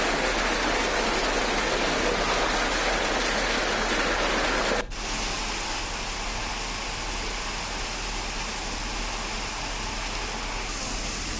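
Heavy rain and hail falling, a steady hiss. About five seconds in it breaks off abruptly and goes on as a slightly quieter downpour.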